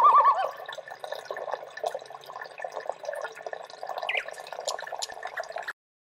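Water trickling and dripping in a steady patter of small splashes, with a short warbling tone at the start and a brief sliding chirp about four seconds in; the sound cuts off abruptly near the end.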